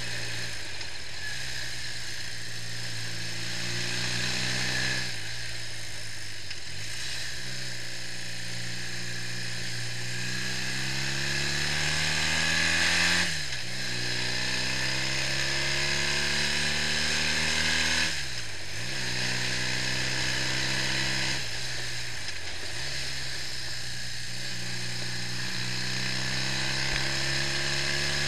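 BMW R65's boxer twin engine pulling on the road. Its pitch climbs steadily as it accelerates and drops sharply at each upshift, several times over.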